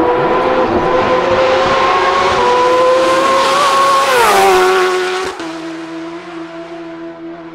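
The supercharged inline-four engine of a Kawasaki H2R at full throttle, its high whine climbing slowly as the bike approaches at speed. About four seconds in it passes close by and the pitch drops sharply as it goes away. Just after, the sound cuts abruptly to a quieter, steady drone.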